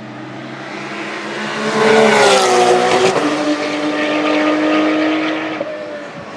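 Race car passing at speed. The engine grows louder as it approaches, peaks about two seconds in with a falling pitch as it goes by, then fades as it moves away.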